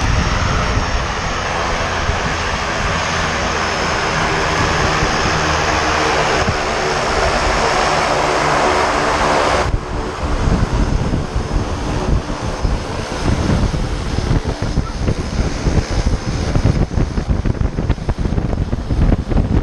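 A light single-engine propeller plane's engine runs steadily on the ground. About halfway through the sound turns rough and gusty, with propeller wash buffeting the microphone.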